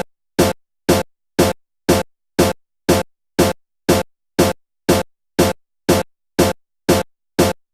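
Electronic background music: a short, punchy beat repeating about twice a second, with silence between each hit.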